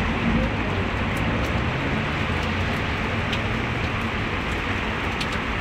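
A car driving through deep flood water, its engine a low hum that fades about three seconds in, over a steady hiss of heavy rain and running water.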